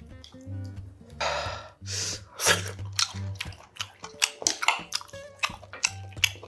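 Close-miked eating of spicy ramen noodles: slurps, chewing and wet mouth clicks, with a quiet music bed underneath.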